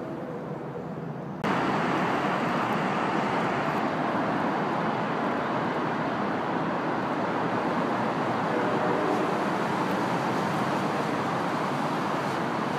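Steady rushing noise of road traffic. It comes in abruptly about a second and a half in, after a quieter stretch of low hum.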